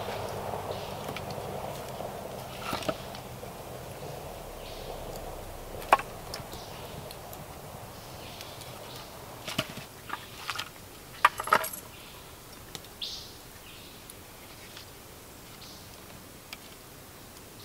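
A small kindling campfire burning, with a soft rush of flames that dies down over the first several seconds. Scattered sharp knocks and snaps of wood as sticks are laid onto the fire, a cluster of them a little past the middle.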